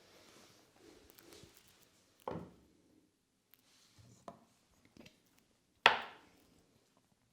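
Three sharp percussive massage strikes, spaced a second or two apart, the last one much the loudest with a short ringing tail, over faint rustling of hands and cloth.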